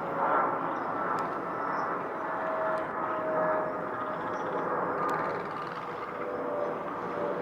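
Steady outdoor engine noise with faint hum tones that drift slowly in pitch.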